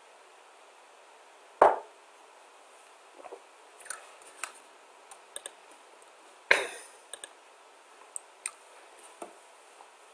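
Computer mouse clicking: a scattered run of light clicks, with two louder clicks, one about a second and a half in and one past the halfway point, over faint steady microphone hiss.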